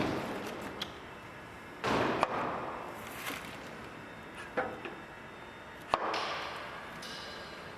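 WEISS SG3063AHR surface grinder at work: three sharp knocks, each followed by about a second of fading grinding hiss, with lighter clicks between them.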